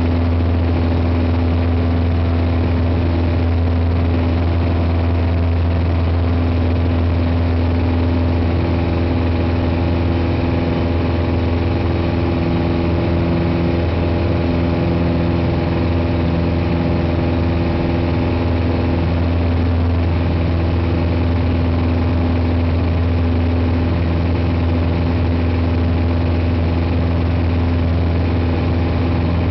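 Piper PA-28 Cherokee's single piston engine and propeller running steadily in flight, heard inside the cabin as a loud, even low hum.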